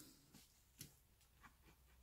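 Near silence: room tone with a low hum and a few faint ticks.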